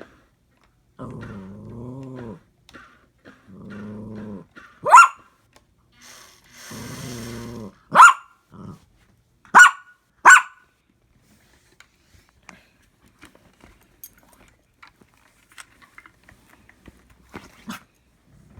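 A dog growling in three low rumbles about a second each, broken by four sharp, loud barks, then falling quiet apart from faint ticks.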